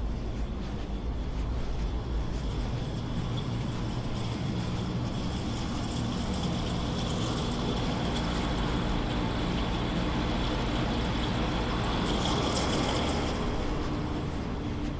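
Street traffic noise with a motor vehicle passing close by. Its engine hum and tyre noise swell over several seconds to a peak near the end, then ease off.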